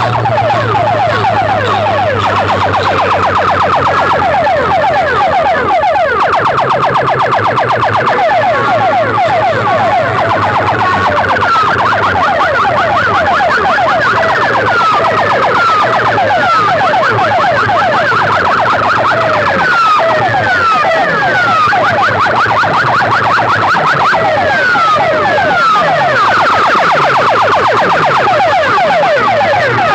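Large DJ sound-box speaker system playing electronic siren-like effects at full volume: fast-repeating falling sweeps, with a steady low bass tone under them for the first several seconds.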